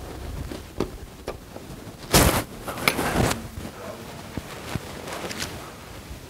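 Electric bill-counting machine riffling through a short stack of prop bills in a loud, dense burst about two seconds in, followed by a second, choppier burst; scattered small clicks and handling knocks around it.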